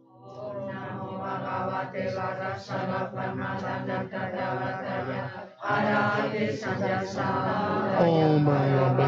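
A group of men and women chanting a Tibetan Buddhist prayer in unison, with a brief pause about halfway through, after which the chanting resumes louder on a low, held pitch.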